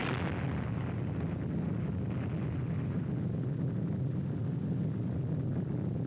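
Steady low rumble on an old film soundtrack, dubbed over footage of the atomic blast cloud. A hissing rush at the start fades within about a second.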